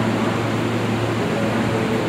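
R32 subway car leading a work train, moving slowly into the station: a steady low hum with a rumbling noise over it.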